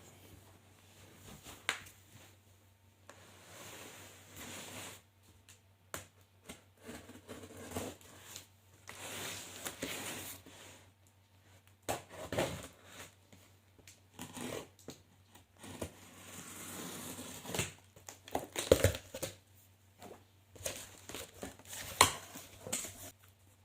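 Cardboard speaker box being opened and its packing handled: irregular rustling, crinkling and tearing, with scattered knocks and one loud knock near the end.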